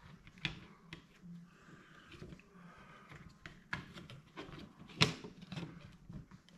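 Scattered clicks and taps of a plastic thermostat wall plate and its wires being handled and pressed into place against a wall, with one sharp click about five seconds in.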